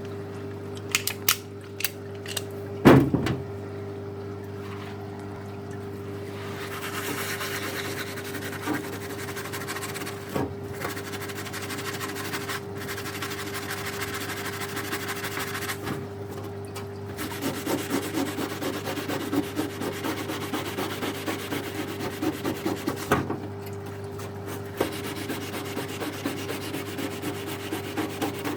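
Blade scraping and rubbing hardened tar-like deposit off a nail gun's reed valve strip, in quick repeated strokes that come thickest in the last third, over a steady low hum, with a few sharp clicks near the start.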